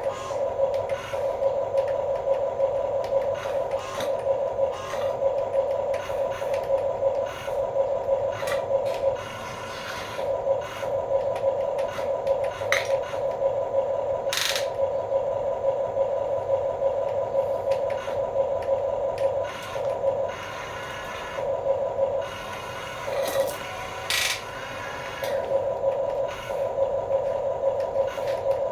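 Small electric motors and plastic gearboxes of radio-controlled toy construction vehicles whining at a steady pitch, cutting in and out every few seconds as the throttle is worked, with scattered sharp clicks and scrapes.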